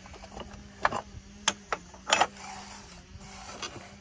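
Loose ceramic tiles clicking and clacking against each other as they are handled and shifted in a plastic tray, a handful of short, sharp knocks spread through.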